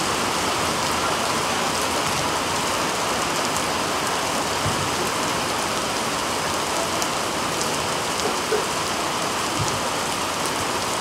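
Heavy rain falling steadily, a dense even hiss with no let-up.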